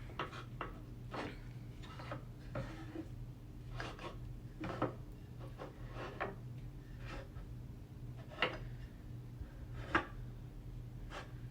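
Small wooden farm animal figures being set down and shuffled around on a table: scattered light clicks and knocks of wood on a hard surface, with a few sharper taps about five, eight and a half and ten seconds in.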